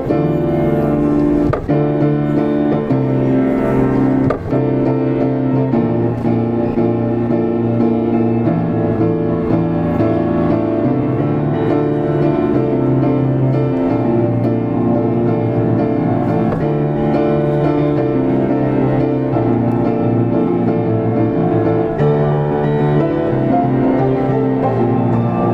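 Diapason grand piano played loud and fast: a busy run of notes over low, repeated bass notes, with sharp accented chords struck about a second and a half and about four seconds in.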